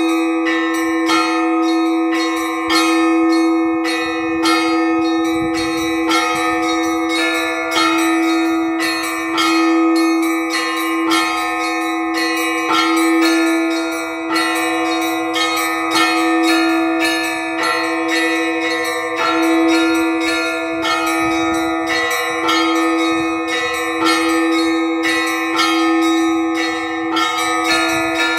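Orthodox church bells rung in a simple repeating cycle (zvon): quick strikes on the smaller bells over a lower bell that rings on throughout.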